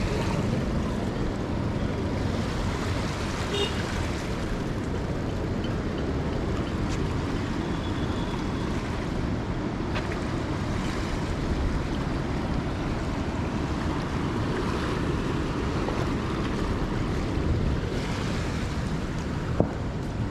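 Swollen Narayani River rushing in flash flood, a steady heavy roar of floodwater.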